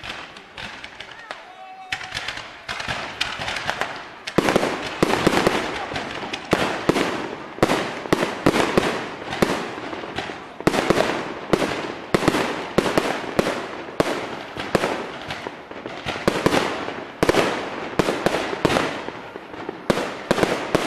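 Fireworks going off: sharp bangs, a few at first and then coming thick and fast from about four seconds in, each trailing off in echo.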